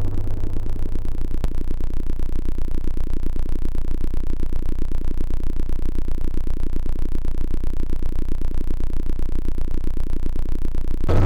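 A steady low electronic drone with a fast, even pulsing, from the teaser's synthesizer soundtrack; fuller synthesizer music comes back in at the very end.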